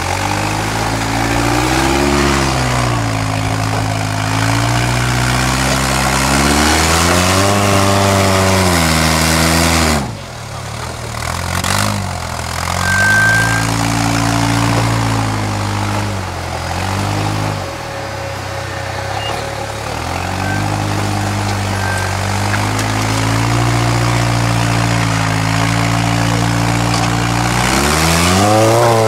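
Engine of a custom-built 4x4 trial buggy labouring as it crawls over rocks, its revs rising and falling in repeated bursts between lower running. There is a long rise in revs around the middle of the first half that cuts off suddenly, and another steep rise near the end.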